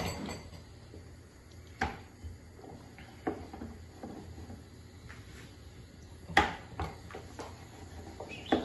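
Scattered knocks and clatters of a wooden rolling pin, board and plates on a kitchen counter while chapati dough is rolled out, about six separate knocks, the loudest a little over six seconds in.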